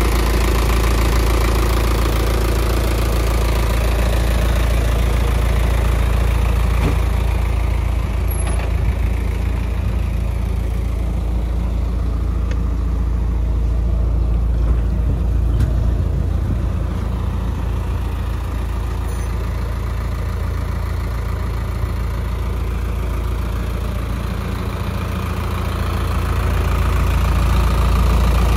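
Isuzu 4HE1 four-cylinder turbo diesel engine idling steadily.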